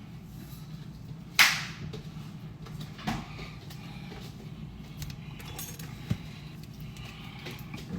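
Kitchen clatter while cooking: one sharp, loud knock about a second and a half in, then a few lighter knocks, over a steady low hum.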